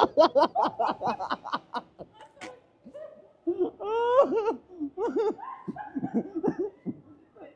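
A person laughing hard, a quick run of ha-ha bursts for about two seconds, then more broken laughs and gliding yelps.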